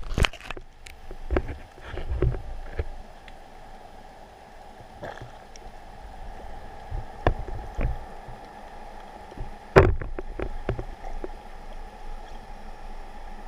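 Muffled underwater sound heard through a camera's waterproof housing: a steady hum with scattered knocks and low thumps, the loudest a sharp knock nearly ten seconds in.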